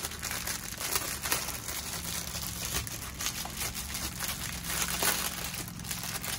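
Clear plastic bags of diamond-painting drills crinkling as they are handled and shuffled, an irregular run of crackles.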